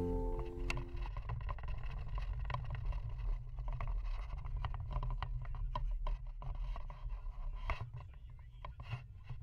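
Steady low road and engine rumble inside a moving car's cabin, with many small scattered clicks and rattles over it; the last notes of music fade out about a second in.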